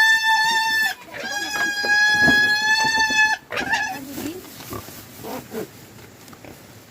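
Pig squealing: two long, steady, high-pitched squeals, the second ending about three seconds in, then a short squeal and quieter sounds.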